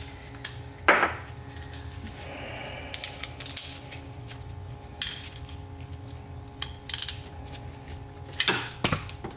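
Scattered metallic clinks and knocks of hand tools and starter parts handled on a workbench, with a ratchet being set to a nut on the starter solenoid; the sharpest clink comes about a second in, and a quick cluster of clicks comes near the end.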